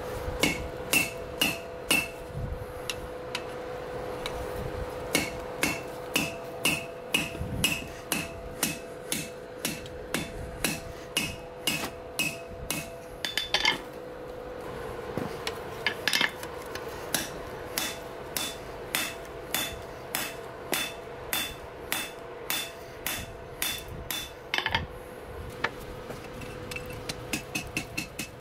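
Hand hammer striking red-hot steel on an anvil in runs of blows about two a second, each blow with a bright metallic ring. The runs are broken by short pauses, and the blows come faster near the end. A steady hum runs underneath.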